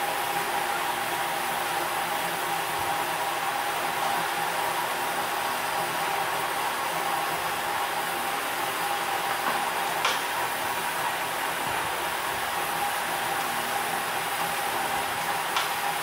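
Steady hiss of compressed air fed into a Ford 6.0L Powerstroke's high-pressure oil system, escaping through a leak; a faint steady tone runs through it, with a couple of light clicks about ten seconds in and near the end. The leak keeps the engine from starting, and the mechanic suspects injector O-rings.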